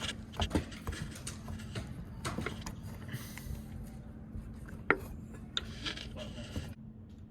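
Clicks, clinks and scraping from hand tools and small metal parts being handled while an exit sign is installed, with one sharp click about five seconds in. A steady low hum runs underneath, and the handling stops shortly before the end.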